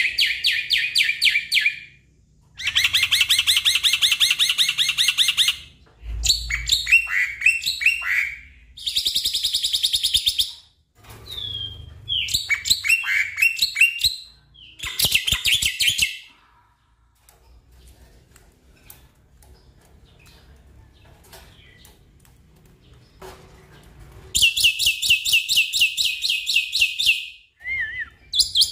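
Black-winged myna (jalak putih) calling in loud bursts of fast repeated notes, each burst a second or two long, some with falling sweeps. After a quiet stretch of several seconds in the second half, the bursts start again near the end.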